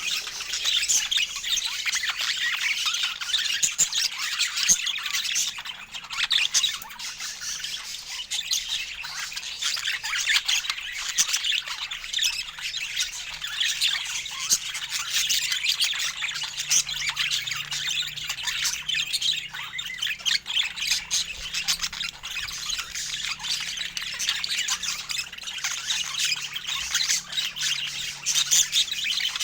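Pet budgerigars chattering: a dense, unbroken run of short, high chirps and calls.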